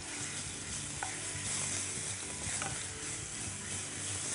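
Kashmiri red chilli paste sizzling in hot sesame oil in a nonstick pan while a spatula stirs it: a steady frying hiss with a few light scrapes of the spatula.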